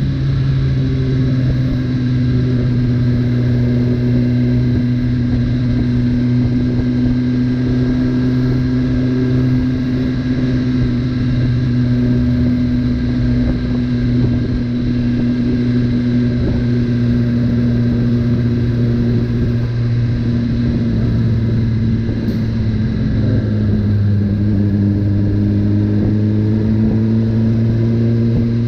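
2018 Suzuki GSX-R1000R superbike's inline-four engine running steadily at a light cruise around 30 mph, heard from the rider's seat with wind and road rumble underneath. About three-quarters of the way through the engine note dips slightly and then holds steady again.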